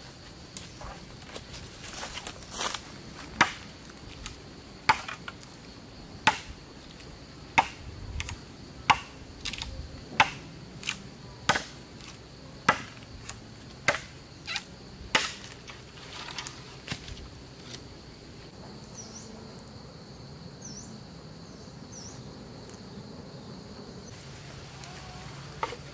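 Machete chopping at a thin tree trunk: about a dozen sharp, evenly spaced blows, roughly one every second and a half. The blows stop about two-thirds of the way through, leaving a steady high drone of insects with a few short chirps.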